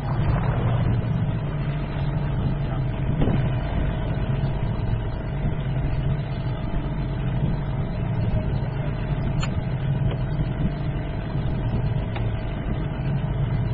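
Small boat's outboard motor running at a steady speed.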